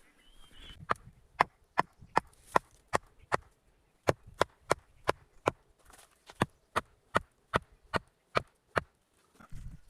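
Knife chopping on a wooden cutting board: about twenty single, sharp strokes at a steady two to three a second, with a brief pause partway through.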